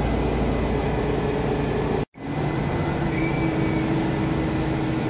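Steady drone of a vehicle in motion: a low rumble with a faint steady hum over it, cut off abruptly for a moment about two seconds in.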